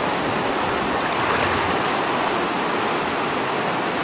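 Whitewater rapids of an artificial canoe slalom channel, rushing steadily.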